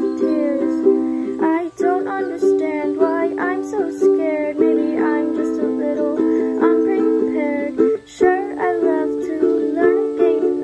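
Ukulele strummed in steady rhythmic chords. The chords change a few times, with brief breaks about two seconds in and again about eight seconds in.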